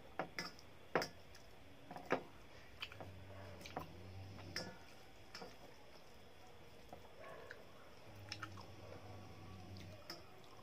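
Rice being mixed and gathered by hand on a steel plate: a string of sharp clicks of fingers against the metal, mostly in the first half, with soft squishing of wet rice and chewing.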